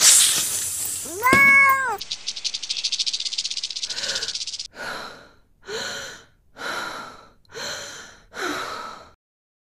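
A cat meowing: one meow about a second in, then a steady rattling hiss for a couple of seconds, then five short meows in a row, about one a second.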